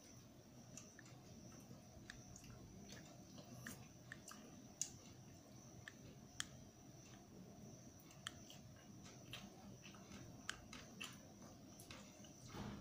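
Faint sounds of eating rice and dal by hand from a steel plate: scattered soft clicks and squishes of fingers mixing rice on the plate and of chewing, with a few sharper clicks. A faint steady high-pitched whine runs underneath.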